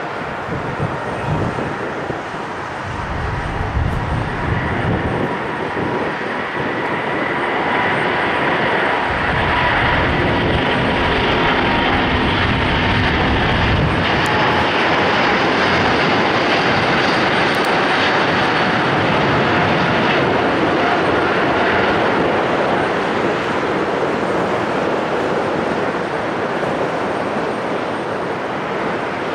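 Airbus A350-900's two Rolls-Royce Trent XWB turbofans at takeoff thrust: a loud jet roar with a deep low rumble through the end of the takeoff roll and liftoff, carrying on steadily with a faint whine as the airliner climbs away and easing slightly near the end.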